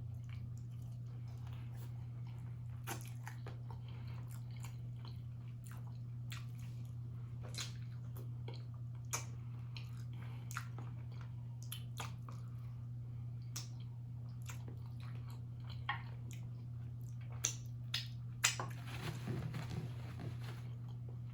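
Close-miked chewing of food, with scattered wet mouth clicks and smacks that come thicker and louder near the end, over a steady low hum.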